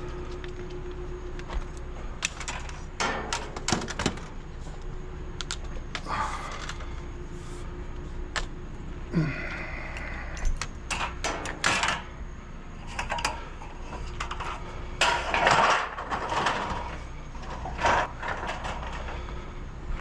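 Scrap being handled and taken apart by hand: irregular knocks, clicks and clanks with a few short scraping, rattling stretches, over a steady low hum.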